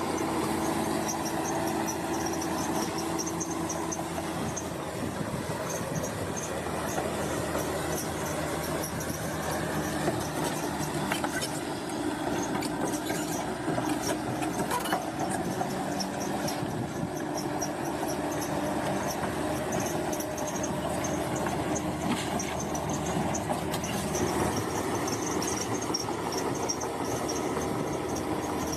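Crawler bulldozer at work: its diesel engine running steadily while the steel tracks squeal high-pitched, with occasional clanks.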